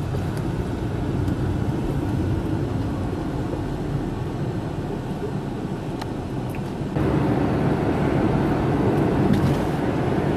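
Steady road and engine noise heard from inside a moving car, a low hum of tyres and motor. It steps up suddenly to a louder, fuller rumble about seven seconds in.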